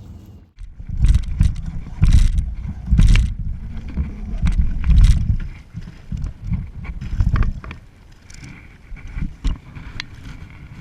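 Irregular knocks and thumps on a kayak as a hooked peacock bass is landed and handled, heaviest over the first five seconds, then lighter scattered knocks.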